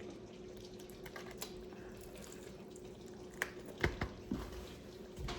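Close-up eating sounds of a person chewing chicken: small wet clicks and mouth smacks, with a few louder smacks about three and a half seconds in and again near the end, over a faint steady hum.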